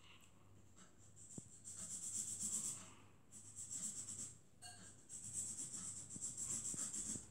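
Felt-tip pen scribbling on paper in quick back-and-forth colouring-in strokes, in three spells with short pauses between.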